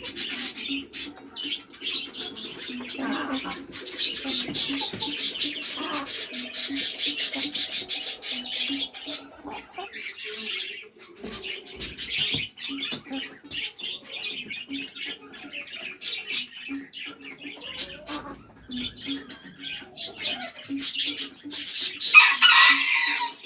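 Domestic chickens making soft, rhythmically repeated low clucks, mixed with high chirps and many sharp clicks. A louder, higher call comes near the end.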